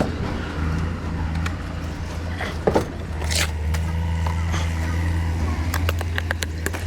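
Steady low engine hum, with scattered clicks and a brief knock and scrape about three seconds in.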